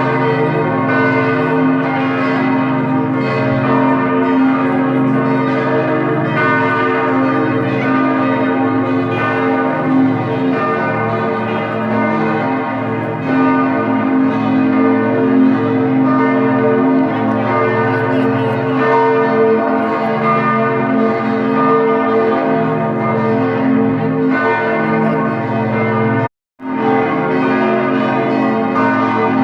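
Church bells pealing, several bells ringing together in a continuous layered peal, cut off briefly for a moment near the end.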